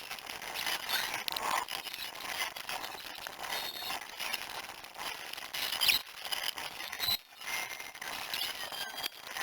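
Workshop sounds of engine teardown work sped up sixty times: a dense, busy jumble of rapid clicks, clinks and short high chirps and squeaks.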